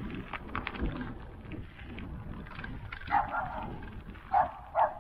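A dog barking, once about three seconds in and twice near the end, short and loud. Under it, the bike's tyres roll over a gravel driveway with small crackles.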